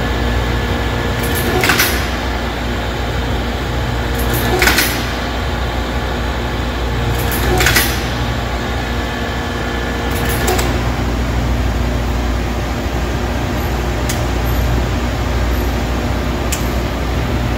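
Hypneumat dual drilling machine running an automatic cycle: a steady motor hum, broken by pairs of short sharp hisses, four times about three seconds apart. The steady motor tone stops after the fourth pair, about ten seconds in, leaving a low steady hum.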